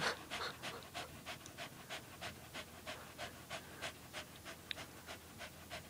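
Small dog panting fast and faintly, about four quick breaths a second, out of breath after rough wrestling play.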